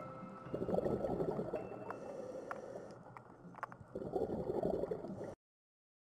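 Scuba diver's exhaled bubbles gurgling from the regulator underwater, in two bursts about three seconds apart with a few faint clicks between them; the sound cuts off suddenly near the end.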